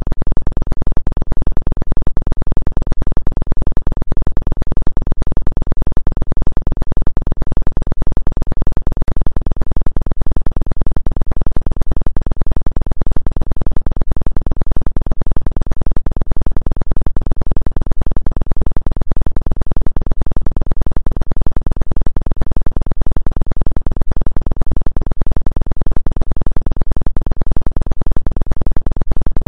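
Synthesized electronic drone, low and unchanging, with an even pulsing throughout: a tone track sold as a 2 Hz healing frequency.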